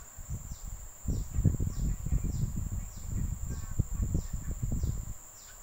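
Close rustling and bumping from hands working thread and a fine crochet hook near the microphone, loudest through the middle. Behind it, a steady high insect trill and a short falling chirp repeated about every half second.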